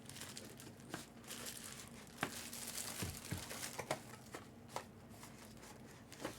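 Faint crinkling and rustling of wrapping, with scattered light clicks and taps, as a mystery autographed baseball is unwrapped by hand.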